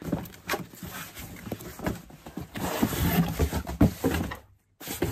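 Cardboard shipping box being handled and opened: flaps scraping and rustling, with scattered knocks and thuds, broken by a moment of silence near the end.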